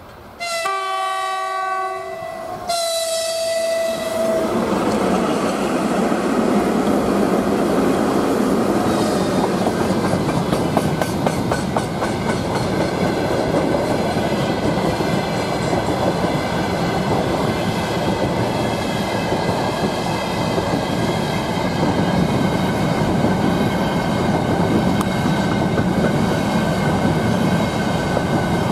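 3ES4K electric locomotive sounds its horn twice near the start: a chord of several tones lasting about a second and a half, then a shorter single-toned blast. The freight train then passes close by, the locomotive and hopper wagons rumbling steadily with a rapid clickety-clack of wheels over the rail joints.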